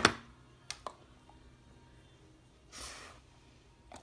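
A dog at a window sill, mostly quiet: a sharp tap right at the start and two faint clicks in the first second, then a short huff of breath from the dog's nose about three seconds in.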